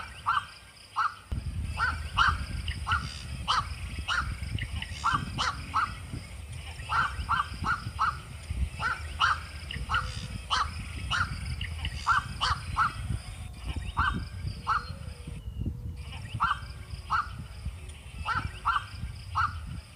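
A bird calling over and over in short, sharp notes, two or three a second with brief pauses, over a steady low rumble.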